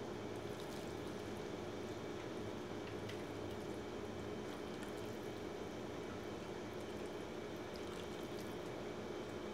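Hot pho broth being ladled from a stainless stockpot and poured into a ceramic bowl over noodles and raw beef slices, with light splashing and drips, over a steady low hum.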